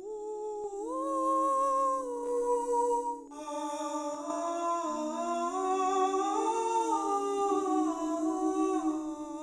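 Singing-sculpture sound installation: several humming-like sustained tones sound together in harmony, each holding a pitch and then stepping or gliding to a new one. About three seconds in, more tones join and the chord grows fuller.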